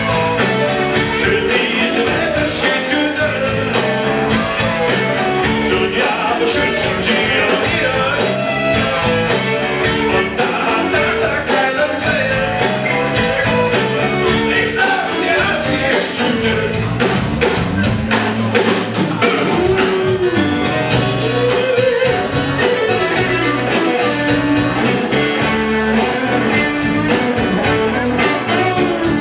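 Live blues-rock band playing: electric guitar, bass guitar, drums with steady cymbals, and keyboards.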